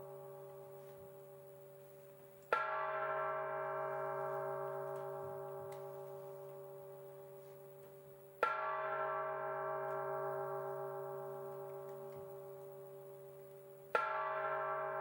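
Bell-like metallic strikes, three of them about six seconds apart, each ringing out with many overtones and fading slowly, over a steady low drone.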